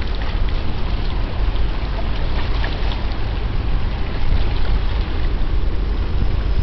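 Wind buffeting the microphone: a steady, gusting low rumble with a faint rush of air above it.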